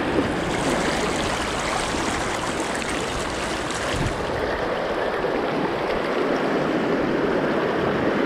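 River riffle: shallow fast water rushing steadily over stones.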